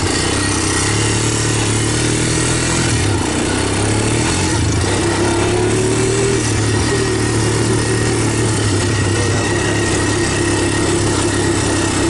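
Engine of a small off-road vehicle running steadily at low speed while it drives over rough grass, its pitch rising a little and dropping back around the middle, under a steady noisy rush.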